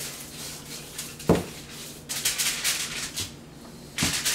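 Table salt shaken from a cardboard canister onto a whole fish: a quick run of gritty shakes in the middle. A dull knock comes about a second in, and near the end there is another knock with aluminium foil crinkling as the fish is lifted.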